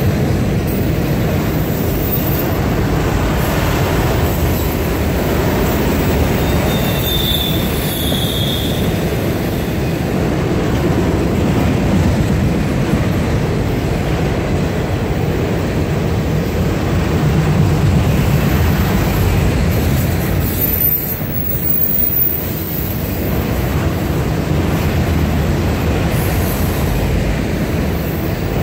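Freight train of autorack cars rolling past, a steady rumble of steel wheels on rail, with a brief high-pitched wheel squeal about seven seconds in.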